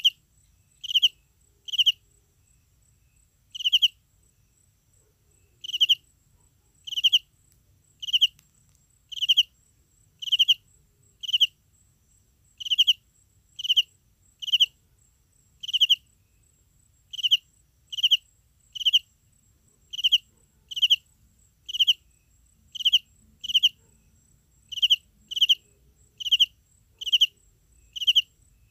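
A cricket chirping: short pulsed chirps about once a second, with a couple of longer pauses early on, over a faint steady high-pitched whine.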